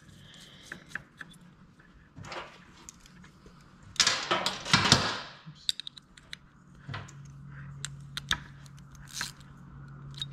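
Small metal clicks and clinks as brass jets are screwed back into a Suzuki RM85 carburetor body with a small hand driver, with a louder spell of rattling and handling about four seconds in. A low steady hum comes in about seven seconds in.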